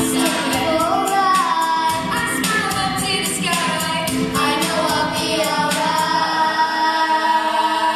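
A group of young girls singing a pop song into microphones over backing music, ending on a long held note.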